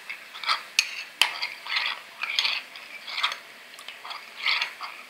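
Metal spoon stirring cornflour and water into a slurry in a glass bowl, scraping and clinking against the glass in quick irregular strokes, with two sharp clinks about a second in.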